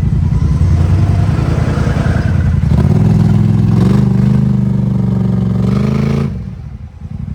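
Off-road vehicle engine revving hard and loud, its pitch climbing in steps, then dropping off suddenly about six seconds in.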